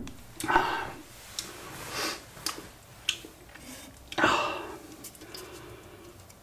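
Handling noises as an opened aluminium drink can is picked up off a coaster: a few light clicks and knocks, and short soft rustling bursts, the loudest about four seconds in as the can is grasped and lifted.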